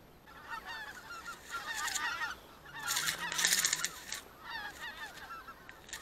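A flock of geese calling, many overlapping honks and cackles at once. Dry grass rustles hard against the microphone in two bursts, about one and a half seconds in and again around three seconds in, the louder one.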